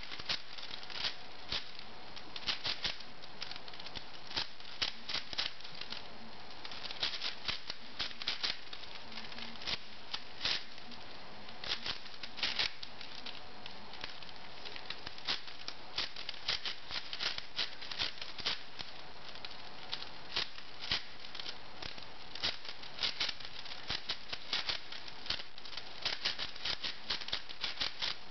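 Plastic layers of a V-Cube 6 (6x6x6 twisty puzzle) clicking and clattering as it is turned quickly by hand, in uneven runs of rapid turns with short pauses between.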